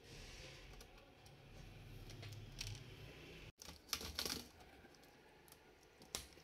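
Faint plastic clicks and taps as a Dell laptop's keyboard is pried out of its housing, with a cluster of clicks a little past halfway. A low hum runs under the first half.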